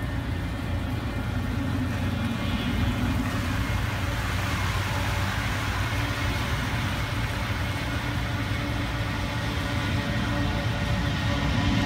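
Distant McDonnell Douglas MD-83 airliner at takeoff power on its takeoff roll, its two rear-mounted Pratt & Whitney JT8D-219 turbofans making a steady jet rumble that grows louder near the end as the plane comes closer.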